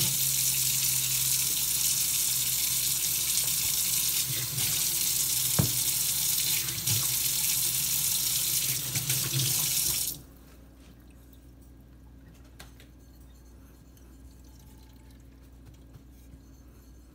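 Tap water running into a sink and over a Japanese natural sharpening stone, wetting it for sharpening. The water is shut off abruptly about ten seconds in, leaving only a few faint light clicks.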